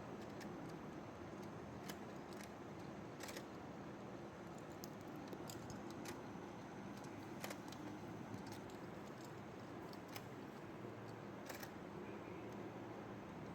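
Toy fishing game running: a steady small-motor hum with light plastic clicks and taps scattered through it, a few of them sharper.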